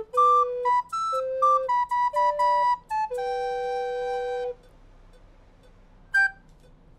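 Recorder melody of quick separate notes that settles on a long held note, which stops about four and a half seconds in; one more short note sounds about a second and a half later.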